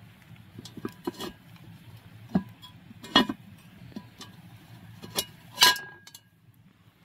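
Cast iron Dutch oven clanking against a steel wire grill grate as it is handled: about half a dozen sharp metallic knocks, some ringing briefly, the loudest about three and five and a half seconds in.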